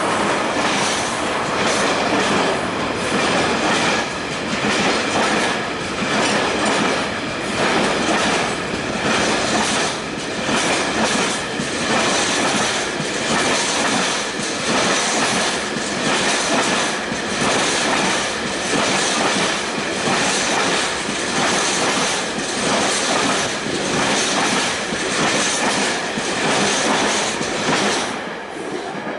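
Long train passing close by: its wheels clatter over the rail joints in a steady rhythm, about one and a half beats a second, with a thin wheel squeal above. The sound drops away near the end as the last vehicle goes by.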